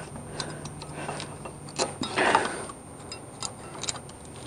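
Small, irregular metallic clicks and scrapes as a new brake pad is worked into the caliper bracket and its anti-rattle clips on a 2004 Toyota Tacoma, with a brief louder rustle a little after two seconds in.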